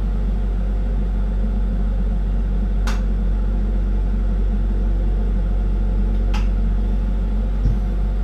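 Steady low rumble and hum of a lampworking bench with the torch burning, unchanging throughout, with two faint short ticks about three and six seconds in.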